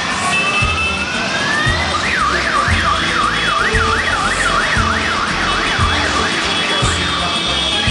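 A siren sounding: a slow rising wail over the first two seconds, then a fast yelp warbling up and down about three times a second. Underneath it a low thump comes about once a second.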